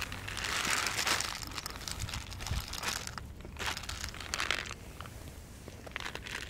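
Dry cat kibble poured from a plastic bottle onto concrete: a loud rattling rush about half a second in, then shorter rattling bursts and two cats crunching the kibble.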